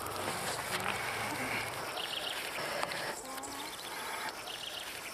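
Faint outdoor ambience: a low steady hiss with a few short, high chirps from small animals, starting about two seconds in.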